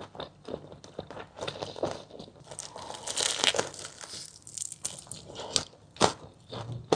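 Crispy fried chicken drumsticks being bitten and chewed close to the microphone: repeated crackling crunches of the fried crust, thickest about three seconds in, with one sharp crack about six seconds in.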